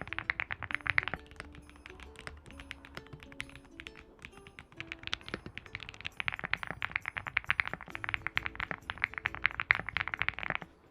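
Rapid typing on a mechanical keyboard fitted with Cherry-profile dye-sublimated PBT keycaps, a fast run of key clacks that thins out about a second in and picks up again around the middle, over light plucked-string background music.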